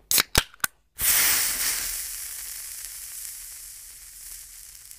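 Logo intro sound effect: three quick sharp hits, then a loud burst of hiss about a second in that slowly fades away.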